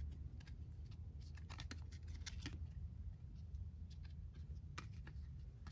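Faint handling sounds: scattered light clicks and rustles of photo cards and packaging being picked up and sorted by hand.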